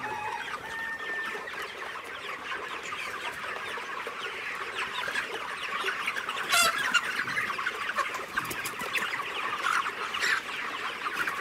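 A large flock of about a thousand 30-day-old broiler chickens calling all at once: a dense, steady chorus of many overlapping short cheeps and clucks, with one louder call about six and a half seconds in.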